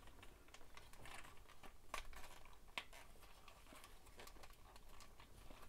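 Faint, scattered clicks and light rubbing of hard plastic parts as a transforming-robot figure is handled and a section is worked toward its tab.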